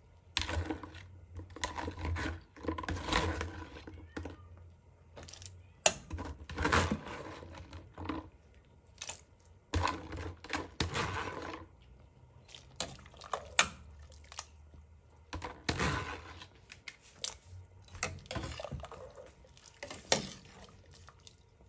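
A metal ladle stirring vegetables and broth in a stainless steel soup pot, in irregular spells: liquid sloshing, with sharp clicks and knocks of the ladle against the pot.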